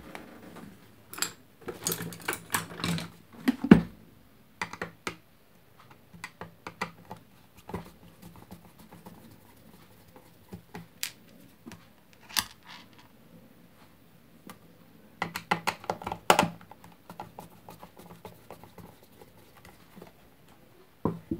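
Screwdriver working Phillips screws out of an electric kettle's plastic base, with scattered clicks, taps and scrapes of the plastic housing being handled. The clicks come in busy clusters about two to four seconds in and again around fifteen to sixteen seconds.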